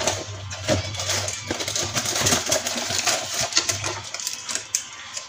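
Kitchen counter handling sounds: a metal spoon clinking and packets and plastic being handled, making a quick run of small clicks, taps and rustles, with a low hum under the first four seconds or so.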